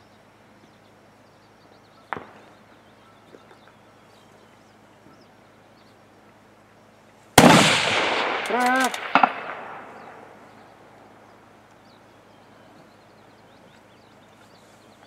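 A single rifle shot from a scoped rifle about halfway through, sudden and loud, with a long rolling echo that dies away over a few seconds. A faint click comes about two seconds in.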